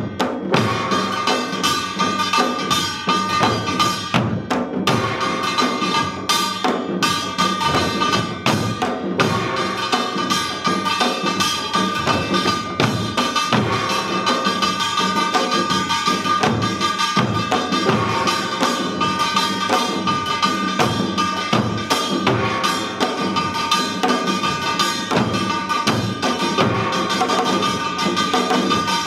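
Korean samul nori drum ensemble, a row of seated players beating janggu hourglass drums together in continuous, dense drumming. A steady ringing tone sits over the drumming.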